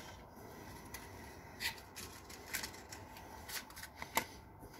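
Light handling sounds: a few short, sharp rustles and clicks as things are picked up and moved by hand.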